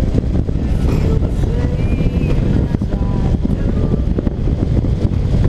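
Motorcycle engine running at road speed under heavy, steady wind rumble on the bike-mounted microphone.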